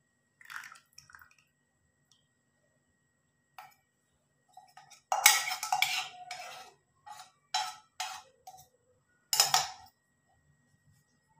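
Metal kitchen utensils clinking and knocking: a steel tumbler handled and set down on a counter after pouring, with a longer clatter about five seconds in, a run of short knocks after it, and another loud clink near the end.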